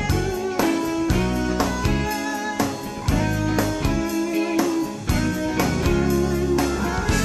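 Background music with a guitar lead over a steady beat.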